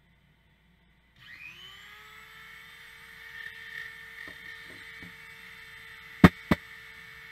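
Handheld rotary tool fitted with a small polishing disc switched on about a second in, whirring up to speed and then running at a steady high whine. Near the end, two sharp clacks a quarter second apart, louder than the tool, as the steel shears are picked up.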